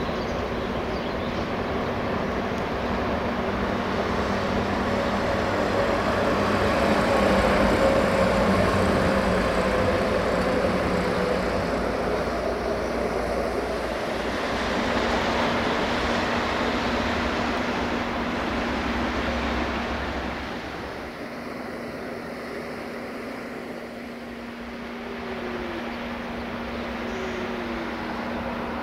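Diesel locomotive running, a steady engine drone with a low hum that eases off about twenty seconds in and builds slightly again near the end.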